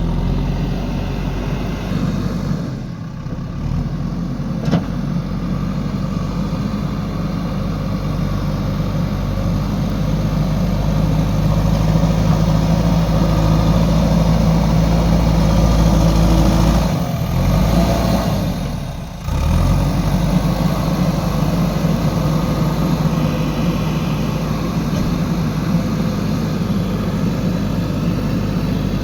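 Four-cylinder diesel engine of a JCB 3DX backhoe loader running steadily under working load, growing louder for a stretch in the middle, with two brief breaks in the sound about two-thirds of the way through.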